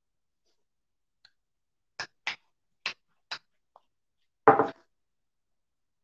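A metal spoon stirring in a ceramic mug, clinking against its sides four times in quick succession, then one louder knock about four and a half seconds in.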